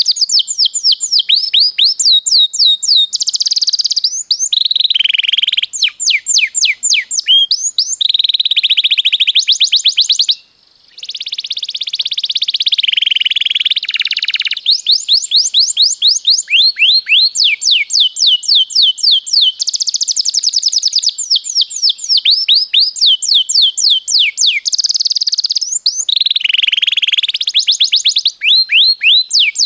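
Domestic canary singing: rapid trills of repeated high sweeping notes run together into long rolls, with a brief pause about ten seconds in.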